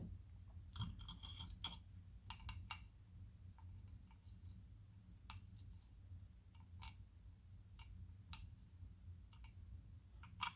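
Small metal lock pins and lock parts clinking and clicking as they are handled and pushed out of the lock cylinder: a quick run of clicks about a second in, then single light ticks every second or two.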